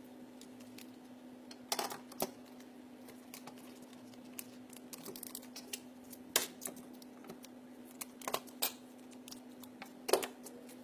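Hands handling and trimming curling ribbon on a paper-wrapped book: scattered soft clicks and rustles, with a few sharper snaps. A steady low hum runs underneath.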